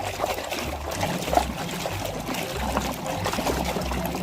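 Water pouring and trickling over a muddy toy as it is rinsed clean, with small knocks as the toy is handled.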